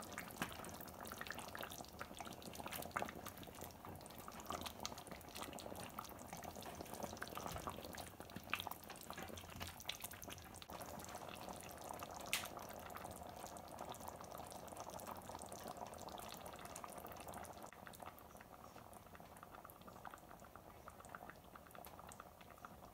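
Thick chicken curry gravy simmering in a pot, bubbling faintly with small scattered pops, growing fainter near the end.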